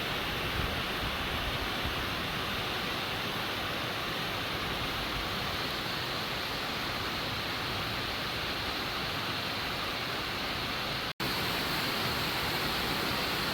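Rain falling steadily, an even hiss, broken by a split-second gap about eleven seconds in.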